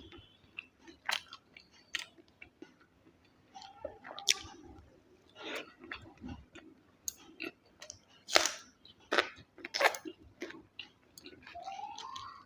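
A person chewing and biting food close to the microphone: irregular mouth clicks and crunches, the loudest a little past the middle.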